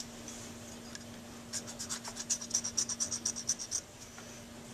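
Coarse 00-cut hand file scraping in quick short strokes, about six a second for two seconds, over the acrylic bite-plate overcoat on a metal Dukoff saxophone mouthpiece tip, roughing the acrylic into shape. A small click comes right at the start.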